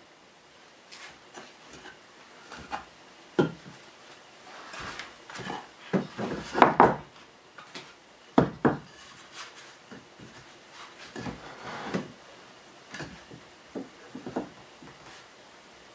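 Wooden boards knocking and clattering against each other as loose pieces of a small wooden frame are handled and fitted together by hand, in irregular knocks with the loudest cluster about six to seven seconds in.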